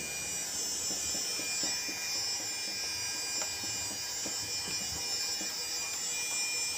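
A steady electrical buzzing hum, with a few faint small ticks.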